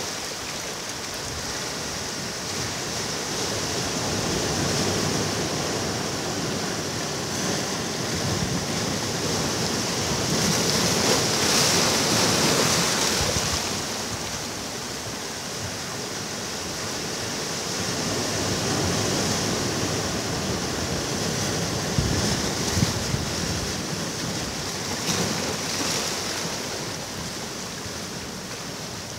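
Ocean surf breaking on a beach, with swells of wash that rise and fall every several seconds and a few light crackles near the end.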